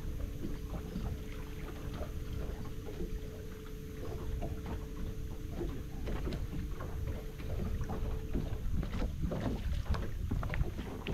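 Small waves lapping and slapping against the bass boat's hull in short, irregular splashes, with wind rumbling on the microphone. A faint steady hum stops about eight and a half seconds in, and the splashing gets busier after that.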